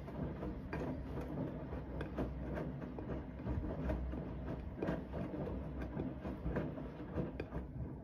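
Siemens front-loading washing machine in its wash cycle: the drum turning with a steady low hum while soapy water and wet laundry slosh and tumble inside, with irregular soft knocks.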